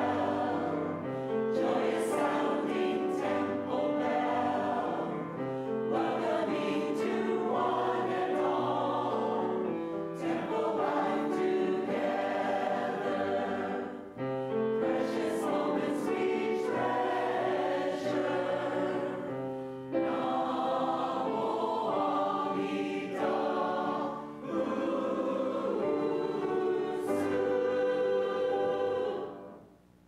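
Mixed choir singing a Buddhist hymn, closing on a long held final chord that cuts off near the end.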